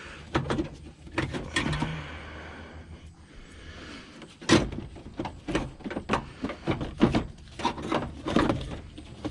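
Knocks, clunks and rattles of car parts and tools being handled. The loudest is a single knock about four and a half seconds in, followed by a busier string of knocks.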